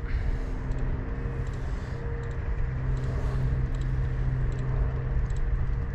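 Steady low hum of a distant engine over a low rumbling noise, with a few faint ticks.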